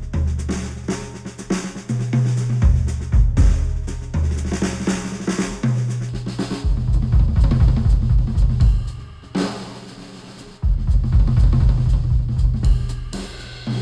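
Recorded music with a drum kit (snare, bass drum, hi-hat) and heavy bass, played through headphones and picked up by microphones. The bass and drums drop out briefly about nine and a half seconds in, then come back about a second later.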